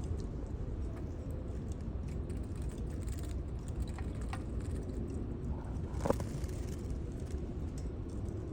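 Canaries bathing in a water dish: a few light splashing taps over a steady low hum, the loudest about six seconds in.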